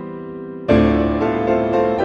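Solo grand piano. A held chord fades away, then a new chord is struck about two-thirds of a second in, with further notes added after it.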